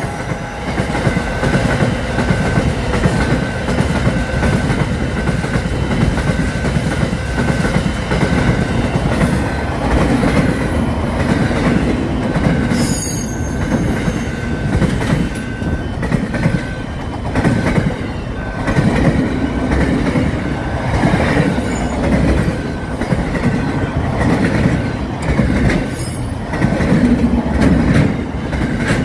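Container freight train wagons passing close at speed: a steady rumble of wheels on the rails with a few sharp clacks. Through it runs a faint high tone that pulses about once a second.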